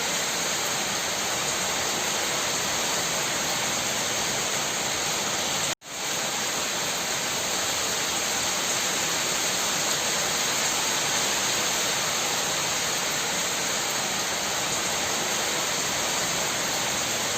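Steady rain shower, an even hiss of falling rain with no single drops standing out. About six seconds in it cuts out suddenly for a moment and then quickly fades back up to the same steady level.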